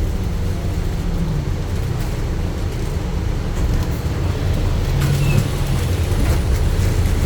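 Citybus Alexander Dennis Enviro500 MMC double-decker bus running with a steady low rumble.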